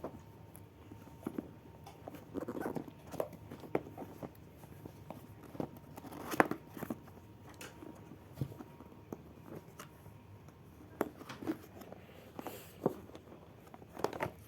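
Irregular light knocks, taps and rustling of objects being handled up close, the loudest knock about six and a half seconds in.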